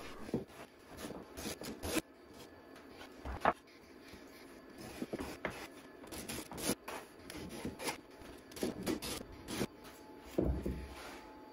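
Block plane with a walnut body and a Hawk Tools blade chamfering the edges of cedar boards: a quick, irregular run of short scraping strokes as the blade shaves wood, played back sped up.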